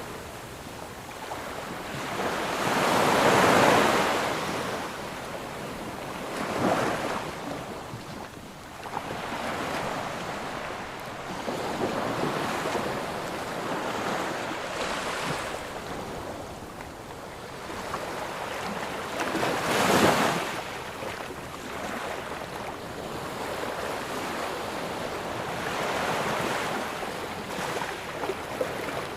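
Ocean waves breaking and washing up on a sandy beach, each crash swelling and fading, the loudest a few seconds in and again about two-thirds through, over a steady surf hiss.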